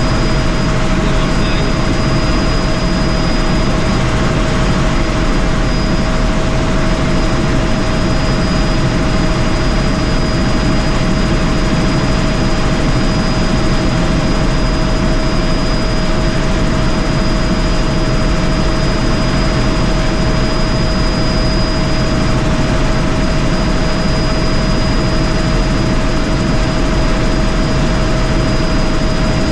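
Helicopter in flight heard from inside the cabin: a loud, unchanging rotor and engine noise with a steady whine running through it.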